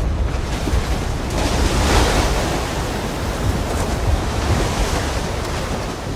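Avalanche sound effect: a deep, continuous rumble of sliding snow, with a rushing swell of noise that builds about a second and a half in, peaks around two seconds and eases off.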